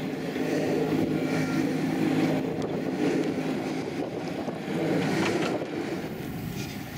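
Narrow-gauge railway locomotive running along the track as it draws near and passes, a steady low engine drone with wind on the microphone.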